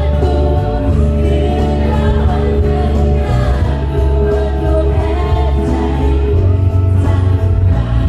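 Young choir singing in harmony with a woman's lead voice, amplified through a PA over an instrumental accompaniment with long, strong bass notes that change every second or so.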